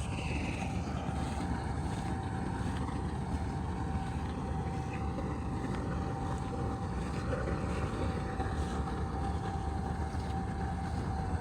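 Combine harvester running steadily in a paddy field: a low diesel rumble with a constant whine over it.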